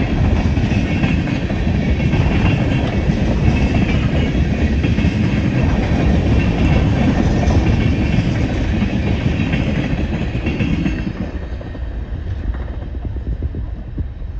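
Freight train of tank cars rolling past close by: a steady loud rumble and clatter of steel wheels on rail. It drops off and fades after about eleven seconds as the end of the train goes by.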